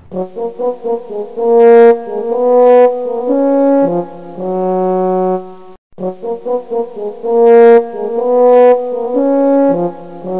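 Background music: a brass-toned melody of quick short notes followed by longer held notes, the same phrase played twice.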